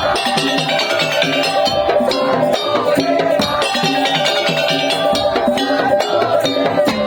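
Madurese tong-tong (daul) percussion ensemble playing: a dense, fast beat of drums and struck percussion under a held, repeating melodic line.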